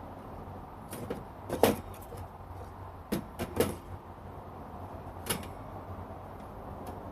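Light metal clinks and knocks, about six irregular ones with the loudest near the start, as the thin stainless parts of a folding fire pit and its grill are handled.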